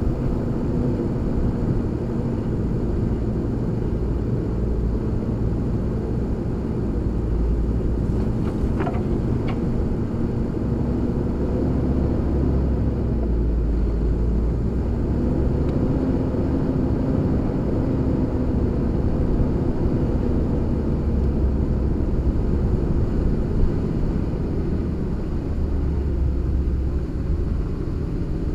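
SsangYong Korando's 2.9-litre five-cylinder turbodiesel running steadily under light load with a low rumble, its pitch rising and falling slightly. A brief high chirp about nine seconds in.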